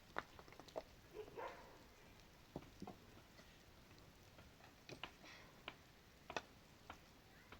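Faint, scattered light knocks and taps, with a brief rustle about one and a half seconds in, from work on a balcony roof cover of boards and plastic sheeting.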